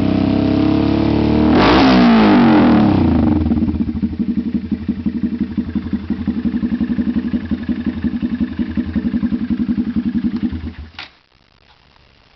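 Honda Grom's single-cylinder engine through a TOCE aftermarket exhaust, revving up in a quick blip, then settling back to a pulsing idle. It is shut off about eleven seconds in, with a short click near the end.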